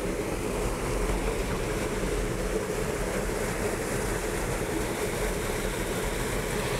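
Steady rushing outdoor noise with a low rumble underneath, with no distinct events.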